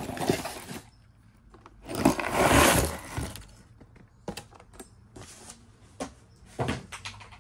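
A mixed lot of costume jewelry (metal chains, bangles, beads) is tipped out of a cardboard box onto a cloth-covered surface. About two seconds in, a burst of clattering lasts about a second, followed by a few separate light clicks as pieces settle and are moved.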